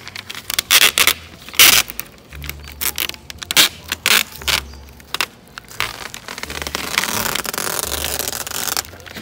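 Masking tape being pulled off its roll: a string of sharp crackling rips, then a longer steady rasp near the end as a length is drawn out.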